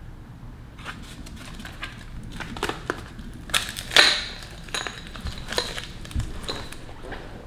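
Brake pad blister packaging being opened and handled: scattered crackles and sharp clicks, loudest about four seconds in, with a dull knock near the end.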